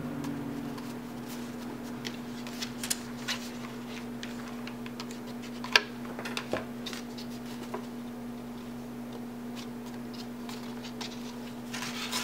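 Stiff card-stock paper petals rustling and crinkling as they are handled, pressed and wrapped around a rolled paper rose centre, with scattered small clicks and taps; the sharpest click comes a little before the middle. A steady low hum runs underneath.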